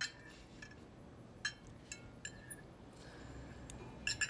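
Spoons clinking lightly against ceramic breakfast bowls while eating: a handful of soft, scattered clinks, a few more close together near the end, over quiet room tone.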